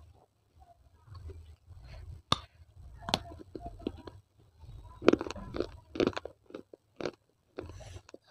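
Close-miked chewing and crunching of pieces of baked clay from tiny Kolkata clay pots. There are two sharp cracks in the first few seconds, then a denser run of crunches past the middle.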